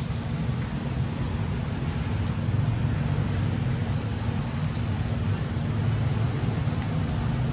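Steady low rumble of nearby motor traffic, with one faint, short, high chirp about five seconds in.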